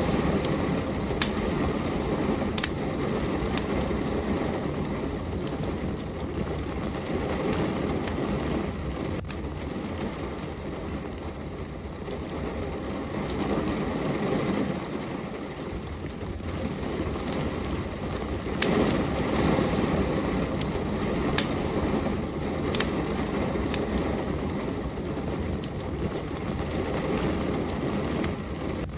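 Steady heavy rain that swells and eases, mixed with the sharp, scattered pops and crackles of a wood fire burning in a fireplace.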